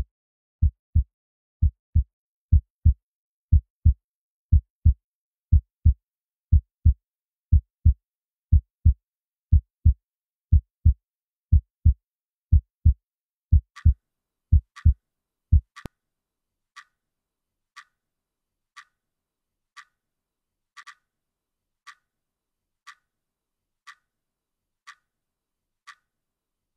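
Heartbeat sound effect: loud, low double thumps (lub-dub) about once a second over dead silence. About halfway through, a much quieter clock ticking once a second comes in, and the heartbeat stops soon after.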